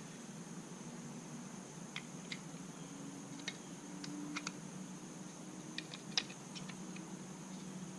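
Echo Speed Feed 400 trimmer head parts being handled and fitted together by hand: a dozen or so short, irregular clicks and taps, the loudest about six seconds in, over a faint steady hum.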